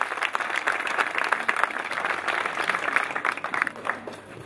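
Audience applauding, the dense clapping thinning and dying away near the end.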